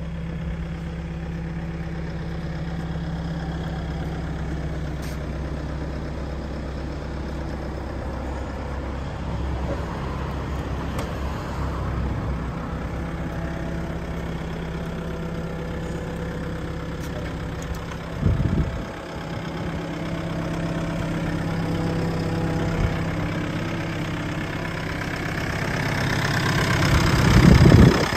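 Volvo ECR88D compact excavator's diesel engine idling steadily, with a brief low thump about two-thirds through. It grows louder near the end, where the engine compartment is open.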